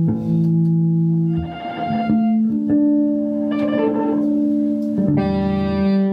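Amplified electric guitars strumming chords and letting each one ring, about four chords in turn, each held for a second or two.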